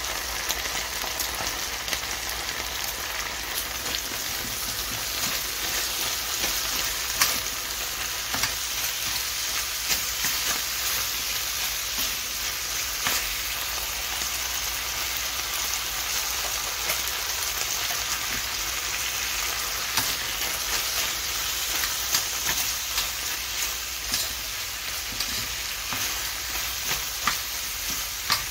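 Sliced pork, onions and shishito peppers sizzling in a stainless steel frying pan as they are stir-fried, with a steady hiss and frequent sharp clicks as the food is stirred with a wooden spatula.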